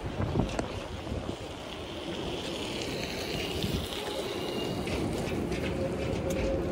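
City street traffic rumble with scattered light clicks. About five seconds in a steady hum joins, and the overall sound grows louder as a vehicle draws nearer.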